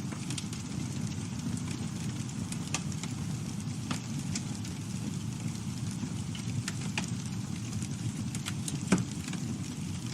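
Campfire burning: a steady low rush of flames with scattered crackles and pops from the burning wood, one sharper pop about nine seconds in.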